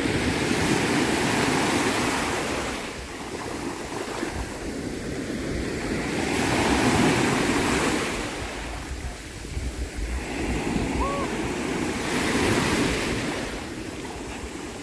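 Sea waves breaking and washing on the shore, swelling and fading every few seconds, with some wind on the microphone.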